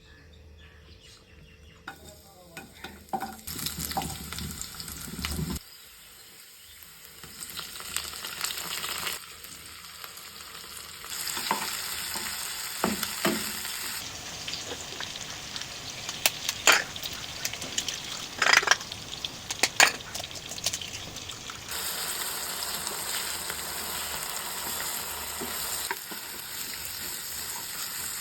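Food sizzling in a hot pan while it is stirred, with a utensil scraping and clicking against the pan. The sizzle starts about two seconds in, and a few sharp knocks of the utensil on the pan stand out past the middle.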